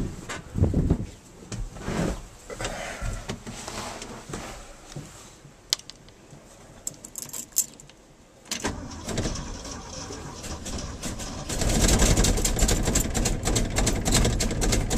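Keys jangling and things knocking about in the cab, then the starter cranks the 1974 Ford F250's engine from about eight and a half seconds in, getting much louder about three seconds later, without the engine catching on this cold start attempt.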